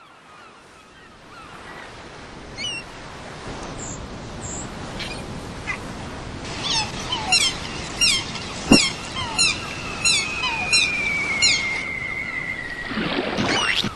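Sea ambience fading in: a steady wash of waves, joined in the middle by a run of short, falling bird calls about twice a second and a long, slowly falling whistle, with a whoosh near the end.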